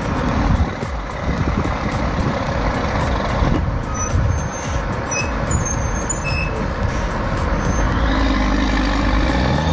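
Heavy diesel vehicle engine running amid a dense, rough rumble, settling into a steadier engine hum about eight seconds in.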